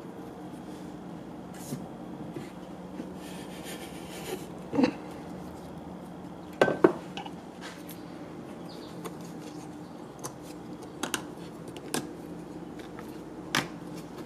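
Wood pieces and a hand plane handled on a workbench: scattered knocks and taps as pieces are set down and fitted, the loudest a quick pair about seven seconds in, over a steady low hum.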